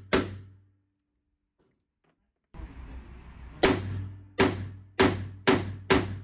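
Chiappa Rhino revolver firing: one .38 Special shot right at the start, then a gap of about two seconds, then five quick .357 Magnum shots about half a second apart, each ringing off the walls of an indoor range.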